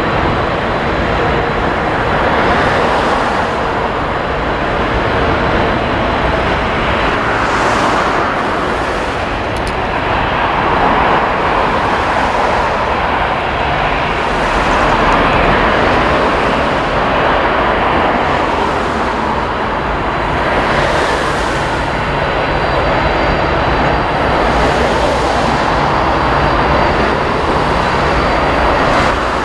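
Boeing 747-400 freighter's four General Electric CF6-80C2 turbofans at takeoff thrust during the takeoff roll, a loud, steady jet roar that swells every few seconds. A thin high whine joins in about two-thirds of the way through as the aircraft comes past.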